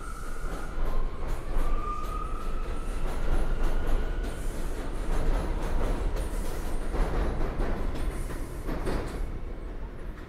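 R179 subway train pulling out of the station and accelerating past, with a whine that rises in pitch over the first few seconds over the rumble and clatter of wheels on track. It fades near the end as the train draws away.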